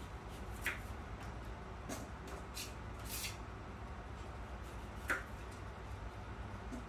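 Pot of apple pie filling simmering under a glass lid: scattered soft pops and clicks, a short sizzle about three seconds in, over a low steady hum.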